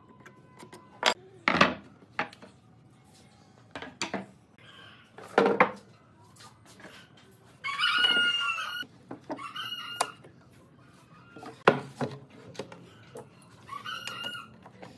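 Scattered sharp knocks of wooden frame pieces being handled and fitted together on a workbench. A rooster crows in the background about eight seconds in, with shorter calls near ten and fourteen seconds.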